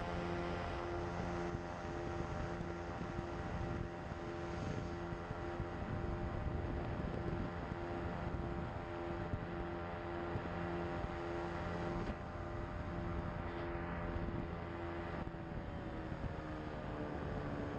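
Pterodactyl Ascender II ultralight's engine and propeller running steadily in flight, the note pulsing slightly; the pitch drops a little near the end.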